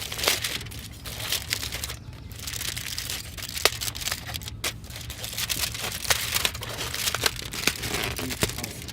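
Wrapping on a takeaway breakfast being crinkled and torn open by hand, in a run of irregular crackles and rustles.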